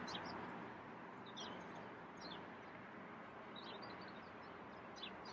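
Faint birdsong from the garden: short, high chirps every second or so, with a little cluster of them about four seconds in, over a steady background hiss.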